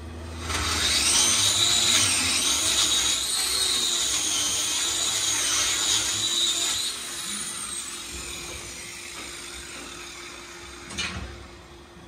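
Handheld angle grinder with a hoof-trimming disc grinding down a cow's hoof, a wavering high whine that starts about half a second in. After about six seconds it is switched off and its pitch falls as the disc spins down; a short sharp knock follows near the end.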